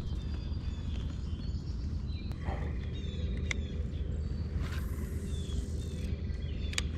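Outdoor pond ambience: a steady low rumble under a few short bird chirps around the middle, with a couple of sharp ticks.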